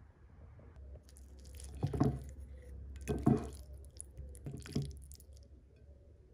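Metal fork cutting into a slice of baked lasagna on a plate: wet, squishy sounds, with three louder pushes spread over a few seconds.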